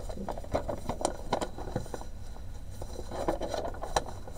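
Plastic bags of diamond-painting drills crinkling and a sheet of paper rustling as they are handled: a string of irregular crackles and taps over a steady low hum.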